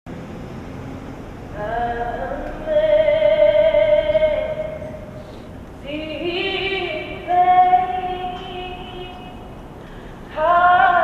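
A woman's voice singing slow, long held notes, each lasting a few seconds, with short pauses between them.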